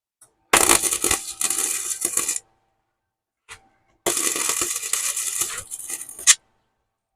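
Welding arc crackling in two bursts of about two seconds each, starting and stopping abruptly as short beads are laid on a steel motor mount bracket.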